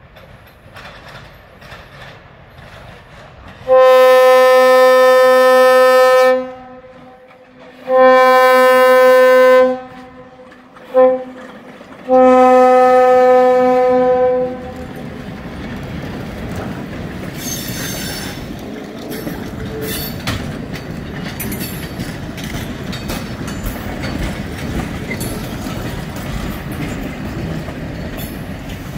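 Air horn of the EMC SW1 switcher sounding the grade-crossing signal: two long blasts, a short one and a final long one. Then the train's lighted cars roll past with a steady rumble and clatter of wheels over the rail joints.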